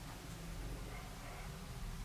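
Quiet room tone: a steady, faint hiss with a low hum underneath and no distinct events.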